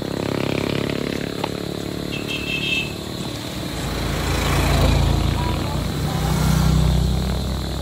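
Small motorcycle engines passing close by on the road, swelling twice, about five and again about six and a half seconds in.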